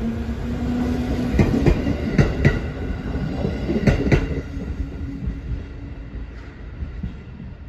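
JR East 205 series electric commuter train running out past the platform: its wheels clack over the rail joints in pairs as the last cars go by, over a steady hum. The sound fades from about four and a half seconds in as the train draws away.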